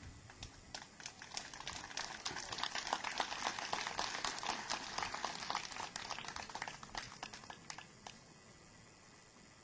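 Crowd applauding: the clapping starts about half a second in, builds to a full burst, then thins out and stops about eight seconds in.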